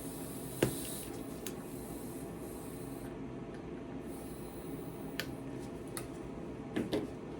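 Air hissing faintly out of a bicycle tyre's valve as it is let down, fading away within the first second and hissing again briefly midway. Small sharp clicks and rubbing from handling the valve and wheel, the loudest click just over half a second in.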